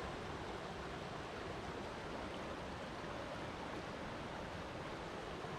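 Flowing water running steadily, an even, unbroken hiss.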